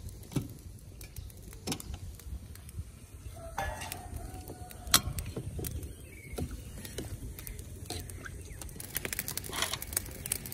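Lumps of jaggery dropped into a steel pot of water and a steel ladle knocking and scraping against the pot as it is stirred: scattered clicks and knocks, the loudest about halfway through. A chicken calls once in the background about a third of the way in.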